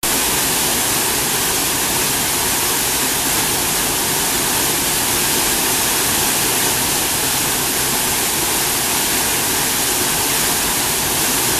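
Rushing water of a mountain stream or falls: a loud, steady, even rush, brightest in the high end, that begins abruptly.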